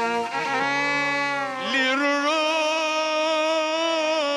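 Egyptian religious inshad: a male singer draws out long melismatic notes over violin accompaniment, ending on one long held note with vibrato.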